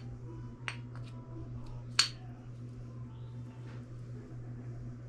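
Steel gears and shaft of a Subaru 5-speed manual transmission clinking together as they are handled during reassembly: a light clink with a short ring about two-thirds of a second in, and a sharper, louder ringing clink about two seconds in, over a steady low hum.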